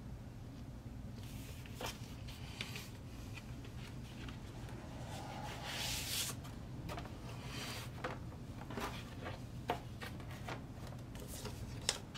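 Vinyl record sleeves and a cardboard mailer being handled: paper and card sliding and rustling, with a few sharp taps, the loudest near the end. A low steady hum sits underneath.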